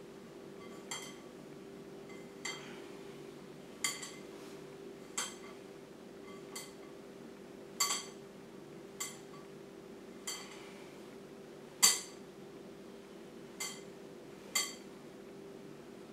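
Light clinks from a mixing bowl being knocked, about eleven in all, one every second or so, as flour, butter and cheese are rubbed together by hand. Each clink rings briefly, and the loudest comes about twelve seconds in. A steady faint hum runs underneath.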